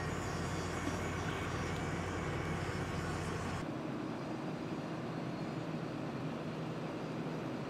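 Diesel engines of Cat hydraulic excavators running steadily with a low hum. About three and a half seconds in the sound changes abruptly and the deepest part of the hum drops away.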